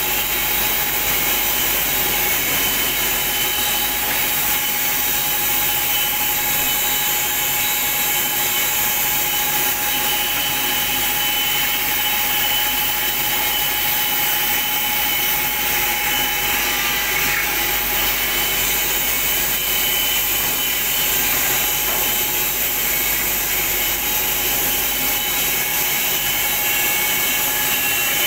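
Woodmaster WM-412 four-sided planer-moulder running with its four cutter heads machining wooden strips fed through it: a steady, loud machine whine with a few constant high tones over a hiss of cutting.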